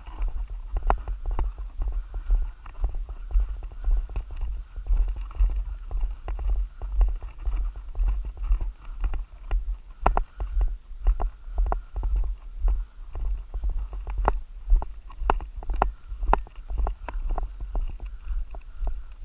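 Footsteps of people walking on a gravel road: steady crunching at a walking pace, each step with a low thud.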